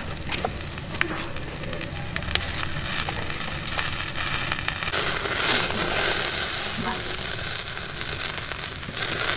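Whole pork legs sizzling and popping on a wire grill rack over an open fire, with sharp crackles from the fire. The hiss grows louder about halfway through.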